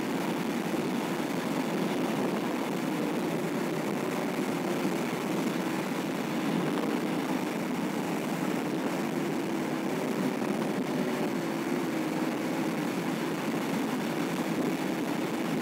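Steady engine and tyre noise of a car driving at speed, heard inside the cabin: a constant hiss with a low hum that wavers slightly in pitch.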